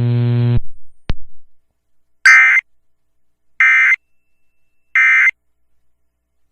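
Steady electrical hum that cuts off about half a second in, then three identical short warbling data bursts about 1.4 seconds apart: the Emergency Alert System end-of-message tones that close a broadcast tornado warning.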